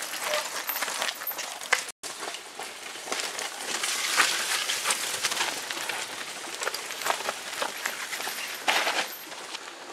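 Mountain bikes rolling over a rocky forest trail: tyres crunching on stones and dirt, with the bikes rattling and clicking as they pass. The sound cuts out for an instant about two seconds in.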